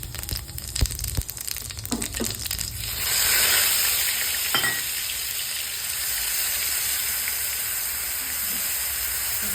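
Whole spices (cinnamon, cardamom, cumin, dried chilli) crackling in hot oil in a pan. About three seconds in, the sizzling jumps up sharply and settles into a loud, steady frying hiss.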